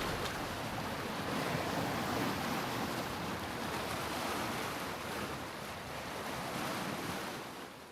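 Steady rushing wash of the sea, swelling and ebbing slowly, fading out near the end.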